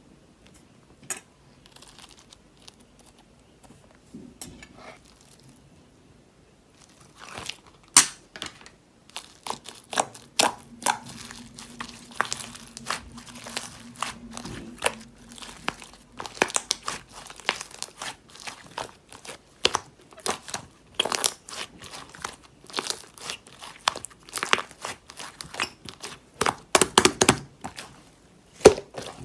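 Crinkling and rustling of crinkly material being handled: a few scattered crackles at first, then continuous irregular crinkling from about seven seconds in.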